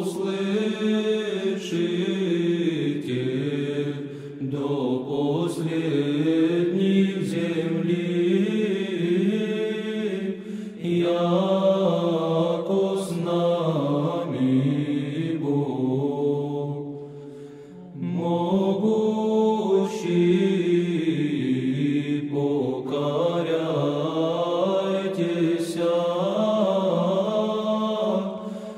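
Orthodox liturgical chant: several voices singing together in long, slow phrases with brief breaks between them.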